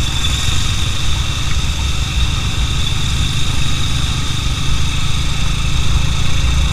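Motorcycle engine running steadily, a constant low rumble with no change in pitch.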